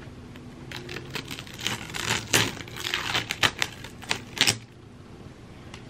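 Tape being peeled off a painted canvas: an irregular, crackling run of small clicks as the strip pulls away, from about a second in until shortly before the end.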